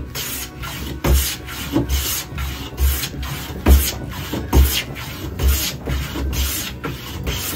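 Lie-Nielsen No. 5 jack plane taking shavings off the edge of a board, about eight strokes a little more than one a second, each a short shearing hiss with a low thud.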